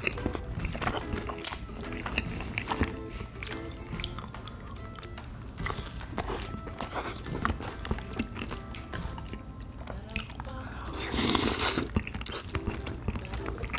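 Close-miked biting and chewing of a fish-shaped bun dipped in tteokbokki sauce, heard as many short crisp clicks over soft background music. Near the end comes a louder burst of noise.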